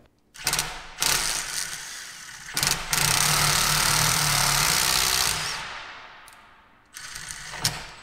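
Milwaukee M12 cordless impact driver running a combination drill-and-tap bit into the steel frame rail, cutting threads into a freshly drilled hole. It runs in several bursts; the longest and loudest comes from about three seconds in to about five and a half, then dies away, and a short burst follows near the end.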